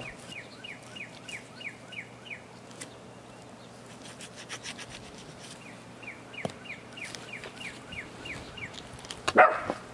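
A songbird singing twice: each time a run of about eight quick falling chirps. Between and under the song, a small dull knife scrapes and cuts through wild turkey breast meat with faint clicks, and a brief louder noise comes near the end.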